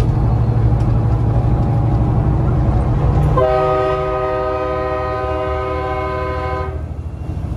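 A multi-note air horn chord, several steady notes held together, sounds about three and a half seconds in, lasts about three seconds and cuts off sharply. Under it, the Caterpillar C15 diesel of the Peterbilt 389 drones inside the cab, easing off as the horn begins.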